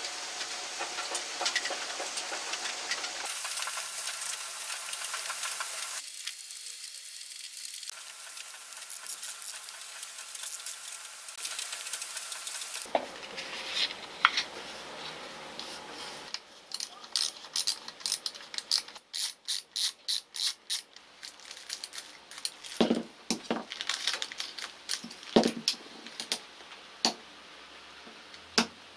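Hand work on a power-tool housing: a needle file rasping in a threaded screw hole, then a run of small clicks and knocks as parts are handled, with steel ball bearings clinking on the bench near the end.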